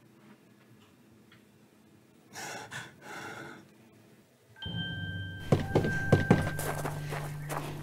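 Quiet room tone with two short breathy rushes of noise, then dramatic film score that comes in suddenly just past halfway with low held notes and a high steady tone. A few loud thuds sound over the music soon after it begins.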